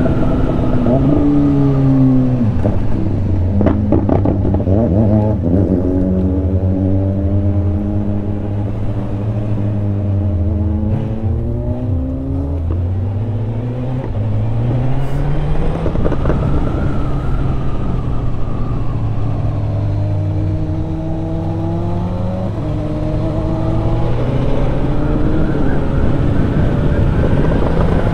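Honda CB1000R inline-four motorcycle engine heard from the rider's seat. It slows with falling pitch in the first few seconds, runs low for a while, then accelerates hard with rising pitch around the middle and picks up again near the end, with wind rush throughout.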